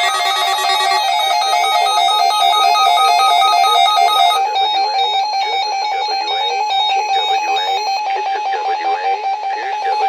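Several weather alert radios beeping their alert tones at once, overlapping rapid electronic beep patterns out of step with one another, signalling an incoming Emergency Alert System Required Monthly Test. Some of the radios fall silent about four seconds in and again about eight seconds in, leaving one steady beeping pattern.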